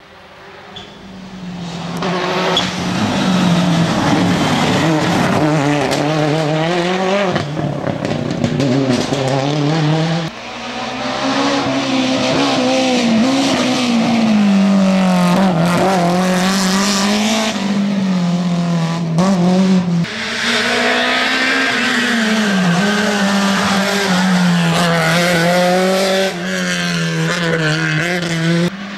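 Rally cars at full attack one after another, engines revving hard and dropping at each gear change and braking point, with some tyre squeal. Among them is a BMW E30 M3.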